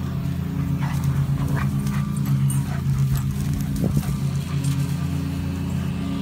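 Two dogs, a German Shepherd and a Labrador puppy, playing, with a few short dog vocal sounds, the loudest about four seconds in. A steady low hum runs underneath.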